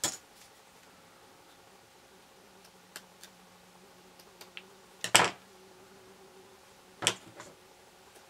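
Scissors and a metal ruler handled on a wooden tabletop: a few separate sharp clicks and knocks, the loudest about five seconds in and another about two seconds later.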